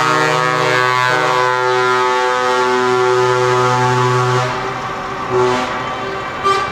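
Several truck air horns blowing long, held chords together; they die down about four and a half seconds in, and another horn starts near the end.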